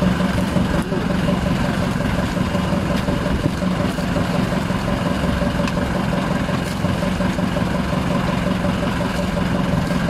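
Outrigger fishing boat's engine running steadily, a constant drone with a low hum.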